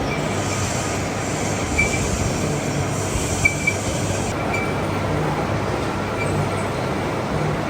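Metal-cutting machinery running steadily, with a high hiss over it that stops about four seconds in.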